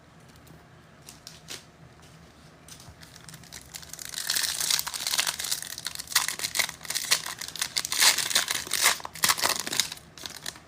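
Wrapper of a football trading card pack being torn open and crinkled by hand, a dense run of crinkling starting about four seconds in after a quiet stretch with a few light clicks.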